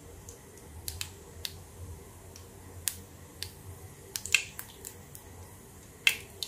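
Tempering seeds (mustard, cumin, nigella and sesame) crackling and popping in hot oil in a kadhai. Irregular sharp pops come a few each second, with a small burst about four seconds in and a loud pop near the end.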